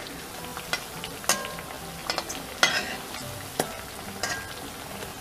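Parippu vada (dal fritters) sizzling as they deep-fry in hot oil in a metal kadai, with a metal spatula scraping and tapping against the pan several times as it pushes the fritters apart.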